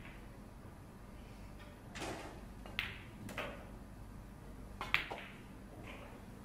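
Cue and pool balls clicking as a shot is played and the object ball is pocketed: several short, sharp knocks from about two to five seconds in.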